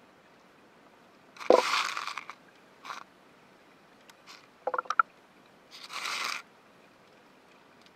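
Underwater scraping and crunching noises with a cluster of sharp clicks. There is a thump and a scrape about one and a half seconds in, quick clicks about five seconds in, and another scrape about six seconds in.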